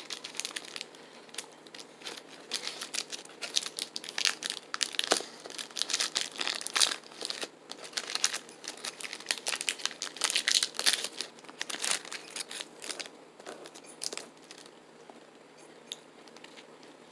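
Plastic granola bar wrapper being crinkled and torn open by hand, with irregular crackling through most of the stretch that dies down for the last few seconds.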